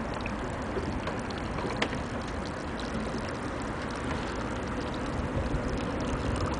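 Steady low rumble and hiss of harbour background noise, with a faint steady hum and a single click just under two seconds in.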